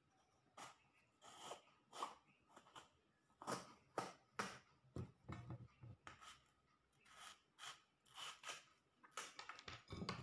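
Faint, irregular clicks and taps, about one or two a second.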